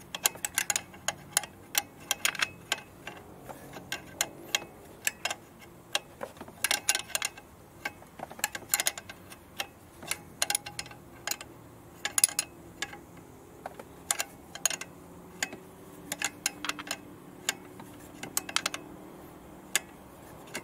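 Irregular sharp metallic clicks, a few a second, of a spanner working on the high-pressure fuel-line union nuts at a diesel engine's injectors as they are tightened.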